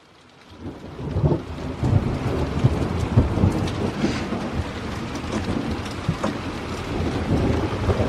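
Thunderstorm wind and heavy rain: gusts buffeting the microphone with a loud, uneven low rumble over a steady rain hiss, swelling up from near quiet within the first second.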